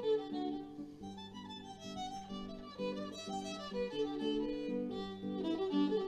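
Instrumental background music with a violin carrying a melody of held notes over a sustained accompaniment.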